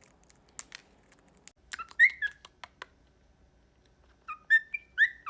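Cockatiel chirping: a few short, sharp clicks, then brief whistled chirps about two seconds in and another quick run of chirps near the end.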